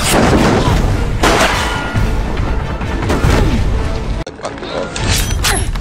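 Action-scene soundtrack: dramatic music mixed with booms and gunshot-like impacts, with several sharp hits and an abrupt cut about four seconds in.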